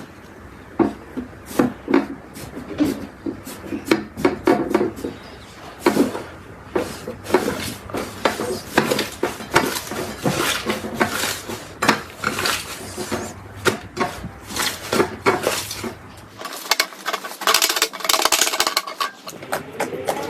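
Slime being squeezed and pressed by hand, making an irregular run of sharp clicks and crackles.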